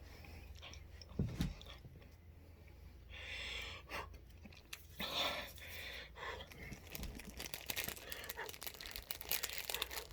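A few heavy breaths against the burn of a Trinidad scorpion pepper, then plastic packaging crinkling and rustling from about seven seconds in as a cricket is picked out.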